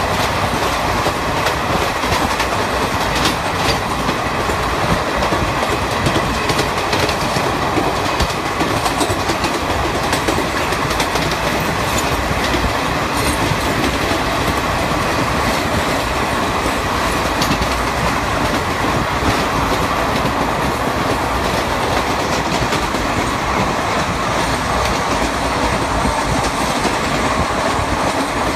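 Indian Railways passenger trains running side by side on parallel tracks: a loud, steady rumble and rattle of coach wheels on the rails, with occasional faint clicks over the joints.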